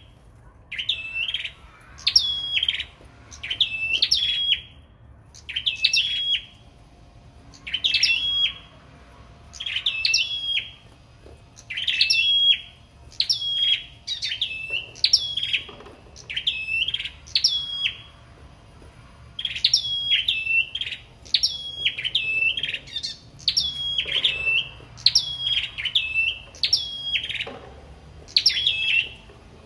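Caged sâu đầu đỏ songbirds singing against each other in a contest: short, high, quickly rising and falling whistled phrases, repeated about once every second or two and at times overlapping.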